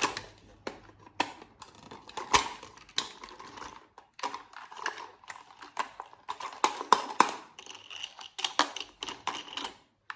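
Toy packaging being handled and opened by hand: an irregular run of sharp clicks, taps and short crinkles of plastic and cardboard.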